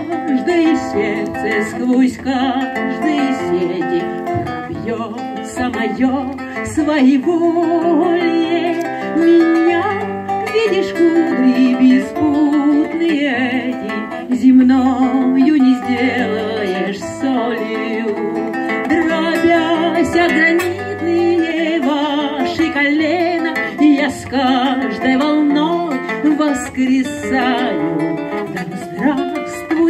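Acoustic guitar playing, plucked and strummed, with a voice singing along.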